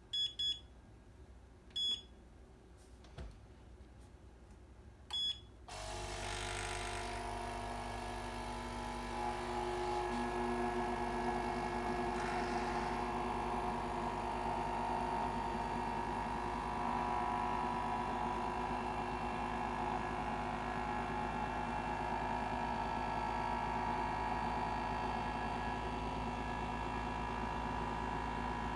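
Kuvings SV500 vacuum blender: a few short beeps from its control panel, then about six seconds in its motor starts and runs steadily, getting louder a few seconds later.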